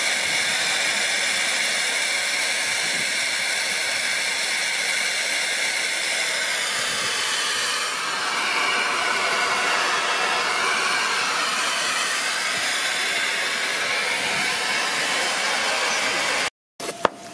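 Miniature live-steam locomotive venting a jet of steam and water from a valve low on its side: a loud, steady hiss that cuts off abruptly near the end.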